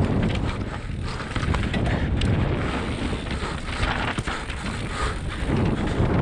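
Wind buffeting the microphone as a mountain bike descends a dirt singletrack, with tyres rolling on loose dirt and leaves and sharp rattles of the bike over bumps now and then.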